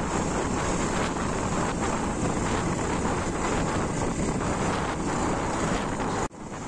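Motorcycle riding at highway speed: steady wind rush on the microphone mixed with engine and road noise. It drops out abruptly near the end.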